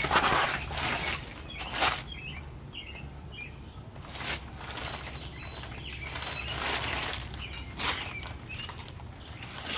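Intermittent brushing and rustling swishes from hand work along the edge of a windshield glass, with faint bird chirps and a steady low hum underneath.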